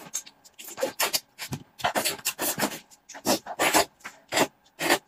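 Close-miked eating sounds as someone chews stewed sheep's head meat: chewing and mouth noises in short, irregular bursts.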